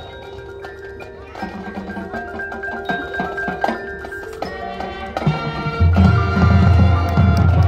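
High school marching band playing its show: quieter held chords with mallet percussion ringing through, then the band swells louder with a heavy low end about six seconds in.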